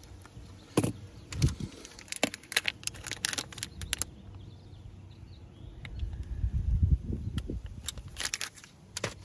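Small repair tools and iPhone XR parts clicking and tapping as they are handled: scattered sharp clicks, a cluster of them a couple of seconds in and more near the end, with a stretch of low rumbling handling noise in between.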